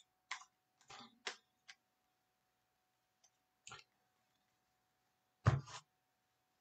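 Baseball trading cards being handled and flipped through, making a scattered series of light clicks and flicks. A louder double click comes about five and a half seconds in.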